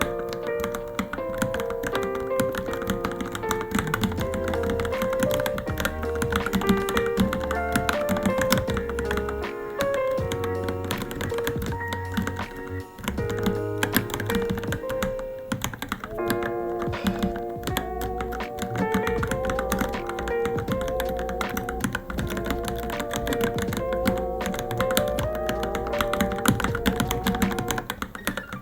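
Typing on a Varmilo Minilo keyboard: a rapid, irregular run of key clicks over background music with a melody and bass line.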